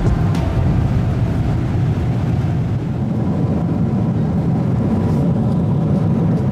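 Steady cabin noise inside a Boeing 777-300ER airliner in cruise: an even, low rumble of the jet engines and rushing air.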